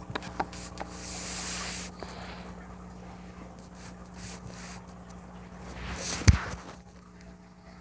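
A phone camera on a carpet being bumped and jostled, with a loud thump about six seconds in, and scattered light clicks and rustles before it. About a second in there is a second-long rush of noise.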